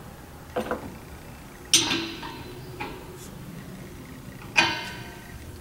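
Metal clanks with a brief ring: two loud ones, about two seconds and four and a half seconds in, and lighter clicks between them. They come from metal pipe fittings and tools knocking against metal while a water separator is plumbed onto an air compressor.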